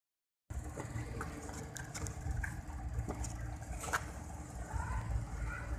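Handling noise from a hand adjusting the recording camera: a low rumble with a few scattered clicks and taps, the sharpest about four seconds in.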